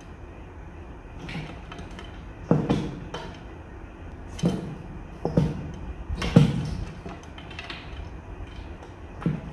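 About six dull thumps and knocks, irregularly spaced, the loudest a little past halfway, from animals jumping and landing inside a glass tank, over a steady low hum.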